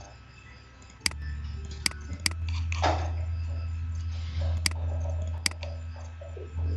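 Computer mouse clicking about five times, sharp single clicks as menu items are picked. Under the clicks runs a low steady hum that starts about a second in.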